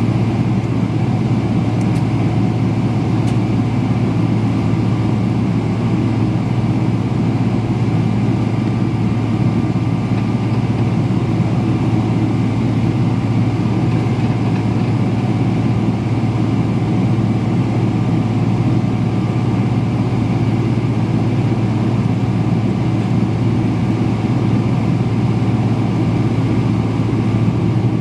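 Steady low drone of a Boeing 777-300ER's GE90-115B engines at idle thrust, heard inside the passenger cabin while the jet taxis, with a deep hum and faint steady whining tones above it.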